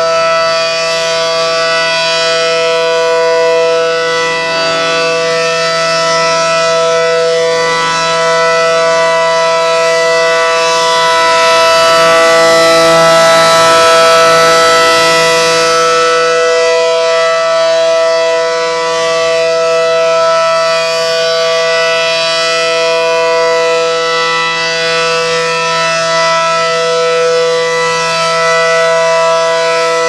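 Allertor 125 rotating outdoor warning siren sounding a steady alert tone on test, holding one pitch throughout. Its loudness swells and fades slowly as the horn sweeps around.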